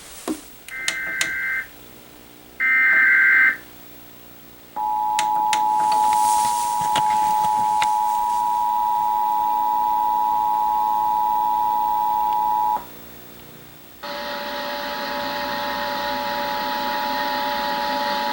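Emergency Alert System test tones: two short warbling SAME header data bursts, then the 8-second two-tone EAS attention signal held steady. After a brief gap, steady tones over a hiss begin about 14 seconds in.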